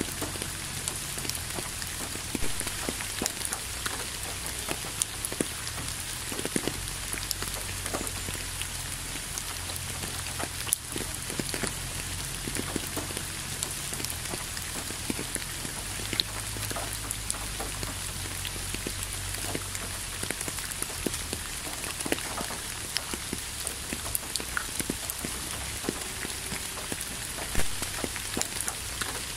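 Steady rain: a constant hiss with many separate drops striking close by.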